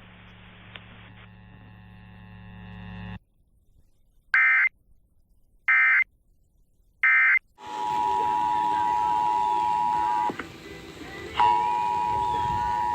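Emergency Alert System test: a low hum, then three short bursts of SAME digital header data tones, then the steady two-tone EAS attention signal (853 and 960 Hz) over hiss, which cuts out for about a second and comes back.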